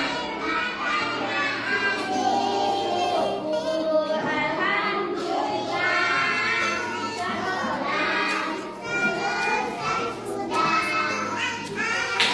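Young children singing together along with music: a sung melody over a steady accompaniment whose low notes change every couple of seconds.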